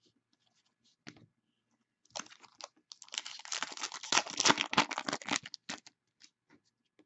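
Trading cards and their packaging being handled at close range: a few light clicks, then about three seconds of dense crinkling and rustling in the middle, trailing off into scattered clicks.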